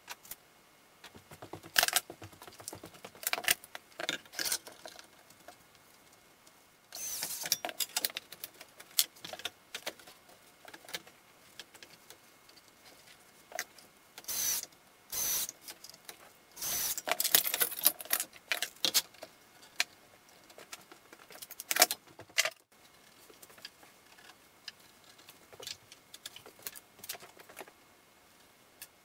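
Workshop clatter of a wood frame being clamped up: repeated clicks and knocks from boards and metal bar clamps being handled and set, with several short runs of a cordless drill driving screws.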